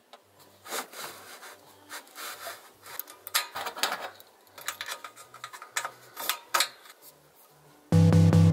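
Irregular scraping and rubbing strokes, some sharp and some drawn out, over faint low music. Loud electronic music with a heavy bass cuts in near the end.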